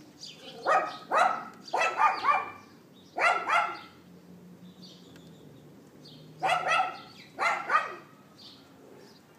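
Dog yapping in quick pairs and threes of sharp barks, with a pause of about two seconds in the middle. Faint bird chirps can be heard in the gaps.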